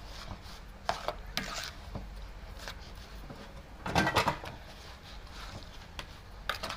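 Kitchen utensils and cookware being handled: scattered knocks and clicks, with a louder clatter about four seconds in.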